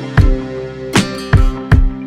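Background music: guitar over a beat with sharp drum hits.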